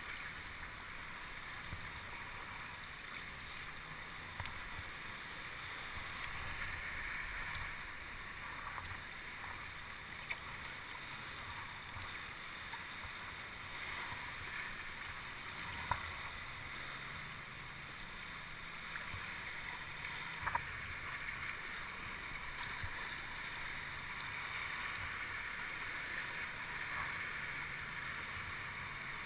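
Water splashing and lapping around a kayak on open water, with a few sharp knocks about halfway through.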